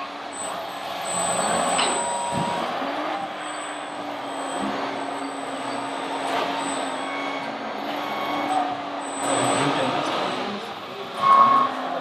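Radio-controlled model construction machines working: a steady engine-like drone that dips in pitch twice, with a few short high beeps, the loudest near the end.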